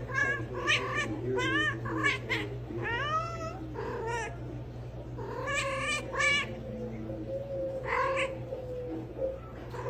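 A cat meowing over and over in short, wavering calls, several in quick runs, with a longer, lower drawn-out sound in the second half.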